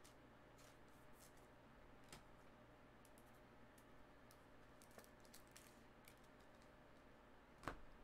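Near silence with faint, scattered clicks and plastic rustles: trading cards being slid into soft penny sleeves and rigid plastic top loaders. One sharper knock comes near the end.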